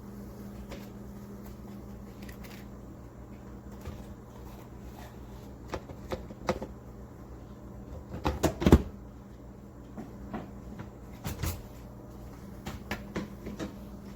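Clicks and knocks of a small drip coffee maker's plastic lid and pot being handled and fitted, with a cluster of louder knocks about eight seconds in, over a steady low hum.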